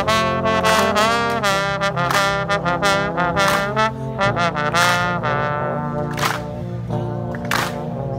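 Dweilorkest, a Dutch street brass band, playing: trumpets, trombones and saxophones carry a melody over held low brass notes, the low part shifting about four seconds in.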